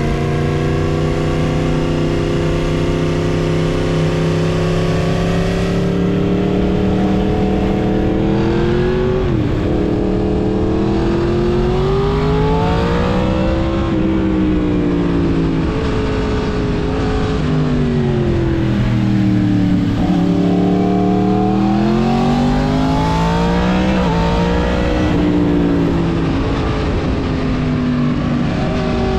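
Yamaha MT-10's crossplane inline-four running through a full Mivv exhaust while riding. The engine holds fairly steady revs at first, then its pitch rises and falls several times as the throttle is opened and closed.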